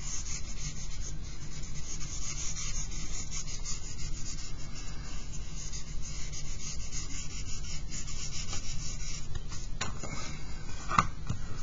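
Stick of vine charcoal scratching across drawing paper in many quick, short strokes, making a steady dry rasping.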